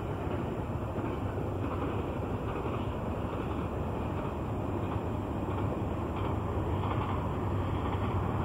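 BNSF double-stack container train rolling past at speed, picking up speed after cresting a grade: a steady rumble of wheels and cars with a low diesel drone, growing slightly louder near the end.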